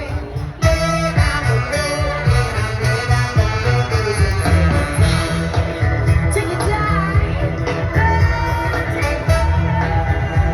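Loud music with singing over a heavy, pulsing bass beat.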